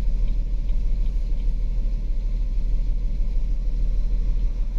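2008 Volkswagen Passat's 3.6-litre V6 idling roughly, a steady uneven rumble. The engine is misfiring and runs badly, with fuel rail pressure logged as too low.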